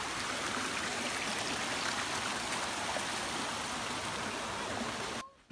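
Shallow creek running over rocks, a steady rushing babble that cuts off abruptly near the end.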